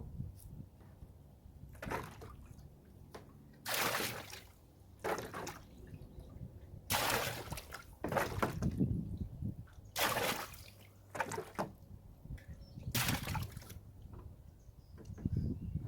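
Rainwater being scooped out of a nearly empty wheelbarrow and poured into a 32-gallon trash can: a series of separate sloshes and pours, about one every one to three seconds.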